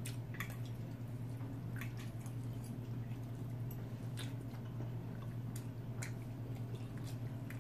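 People chewing food at a table. Occasional light clicks of forks on plates come every second or so, over a steady low hum.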